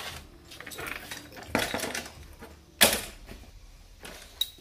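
Metal hand tools, sockets and a socket wrench, clinking and clattering as they are handled, with one loud sharp metallic clank just under three seconds in.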